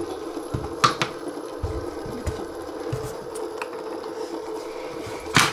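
Metal three-arm fidget spinner spinning on a tabletop, its bearing giving a steady whir. A sharp click comes about a second in and a louder one near the end.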